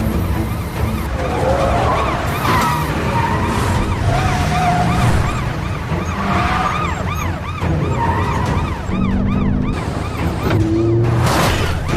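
Police sirens yelping in quick rises and falls, about three a second, over the rumble of vehicles in a chase.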